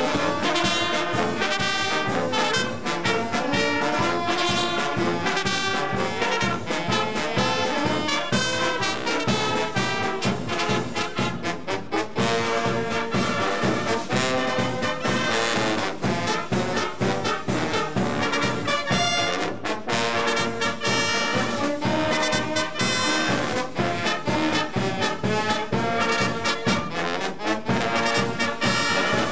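Wind band playing outdoors, with brass, saxophones, clarinets and flutes together and a regular beat.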